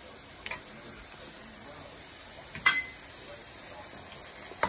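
Chopped onions frying in oil in a steel pot, a steady faint sizzle, with a slotted metal spoon clinking against the pot: a small click about half a second in, a sharp ringing clink a little past halfway, and another click near the end, as ginger-garlic paste goes into the oil.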